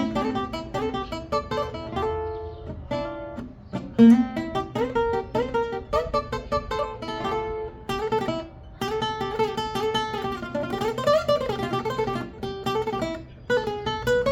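A requinto with a palo escrito body and spruce top, played solo: a quick plucked melody over chords, with brief breaks between phrases.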